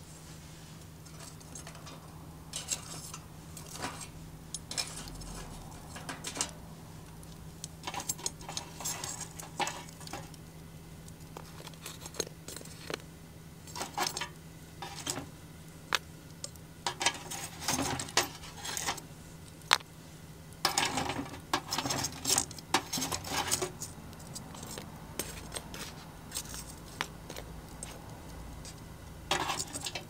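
Metal tongs setting lumps of burning charcoal onto the aluminium lid of a mess tin to add top heat, making irregular clusters of clinks, taps and short scrapes. A low steady hum runs underneath.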